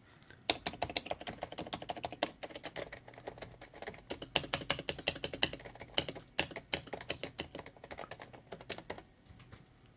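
Topre Silent keyboard's capacitive keys being mashed hard and fast, a rapid flurry of key strikes with the spacebar among them. The flurry stops about nine seconds in.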